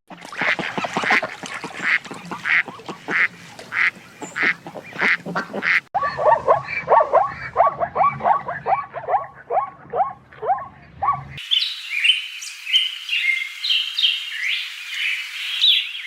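Ducks quacking: a steady run of calls, then a faster series of short, falling quacks. Near the end it cuts suddenly to a stretch of high-pitched peeping calls.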